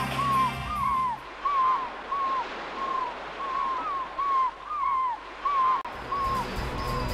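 Birds calling over and over, a dozen or so short cries, each rising then falling, over a soft steady hiss. Background music drops out about a second in and comes back near the end.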